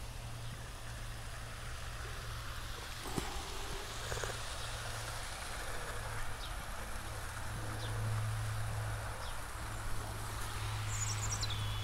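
OO gauge model trains running on garden track: a steady low hum that swells a little about two-thirds of the way through and again near the end. A robin sings a few short phrases near the end.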